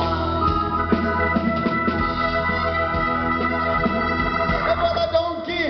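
Live band instrumental passage: an electric keyboard holds sustained organ-sound chords over drums and double bass.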